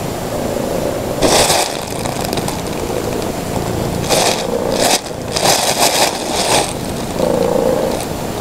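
Thin plastic shopping bag crinkling and rustling as a cat shifts about inside it, in three bursts: about a second in, around four seconds in, and a longer one a little later. A steady low purr runs underneath.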